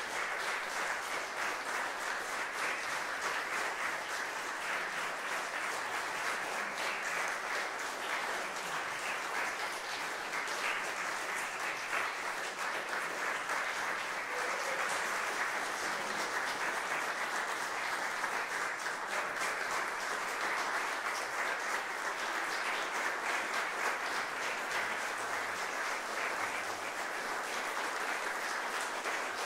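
Audience applauding, many hands clapping in a dense, steady patter that neither swells nor fades.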